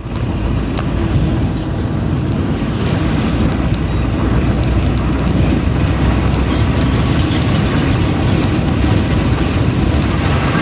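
Steady low road and engine rumble inside a car's cabin at highway speed, the tyres running on a concrete road surface, with a few faint clicks.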